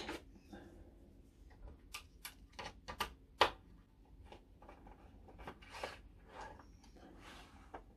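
Small hard clicks and clacks of a 1/14-scale model truck fifth-wheel coupling being handled and its kingpin-locking mechanism worked by hand, with a quick run of clicks about two to three and a half seconds in, the sharpest near the end of that run, and softer clicks later.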